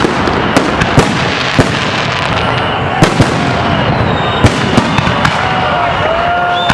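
Fireworks salute: a rapid, irregular series of sharp bangs from firework shells bursting, over a continuous crackling, rumbling wash of further explosions.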